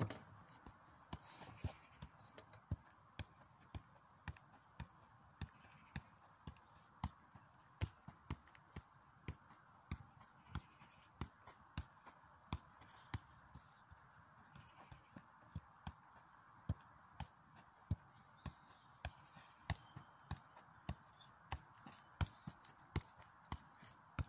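A football being juggled: the ball is tapped up again and again, a steady run of light thuds about one and a half touches a second.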